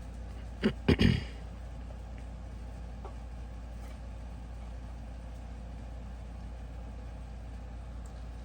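Steady low hum of an air-conditioning unit, which also sets nearby metal bars vibrating. Three sharp knocks come close together about a second in.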